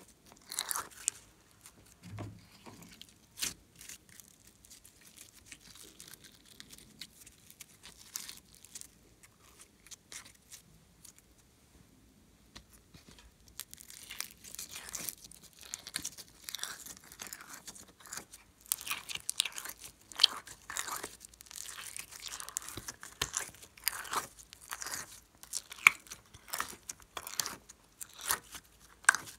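Glossy glitter slime being pulled from a plastic tray and squeezed in the hand, making many short sticky clicks and squelches. They come sparsely at first and much more densely from about halfway through.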